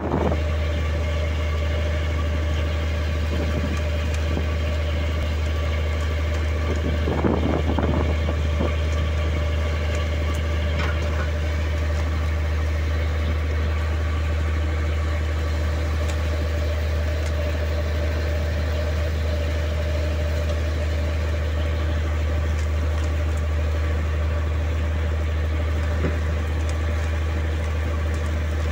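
A fishing boat's engine running steadily, a deep even hum with a fainter steady tone above it. A brief burst of louder noise comes about seven seconds in.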